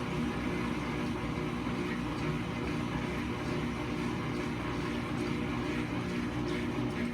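GE GTW460ASJ4WW top-load washing machine spinning a load of towels in the slower part of its spin cycle: a steady motor hum with swishing, even in level throughout.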